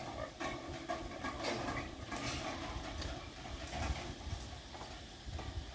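Pigs in a pen grunting, a run of short, irregular sounds.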